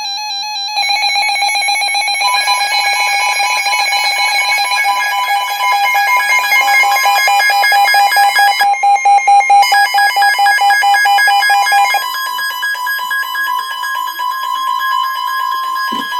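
Emergency alert tones: loud, layered electronic tones with a rapid pulsing beep, the attention alarm of a severe thunderstorm warning broadcast. The lower of the tones drops out about three quarters of the way through, leaving the higher one.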